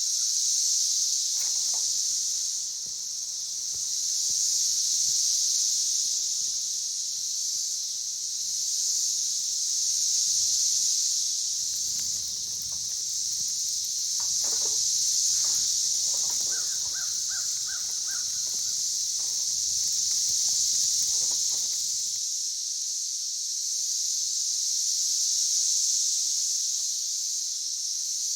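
Steady high-pitched insect chorus in summer woods, swelling and fading every few seconds, with a few faint short bird calls about halfway through.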